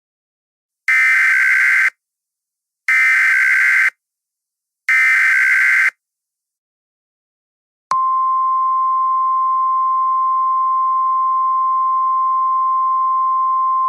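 Emergency Alert System SAME header: three one-second bursts of warbling digital data, then, about eight seconds in, a single steady attention tone of the NOAA Weather Radio kind. Together they signal that a new emergency alert is about to be read.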